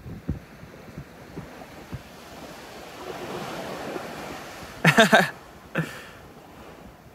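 Waves washing on a beach with wind buffeting the microphone. About five seconds in, a short loud vocal cry, and a fainter one just after.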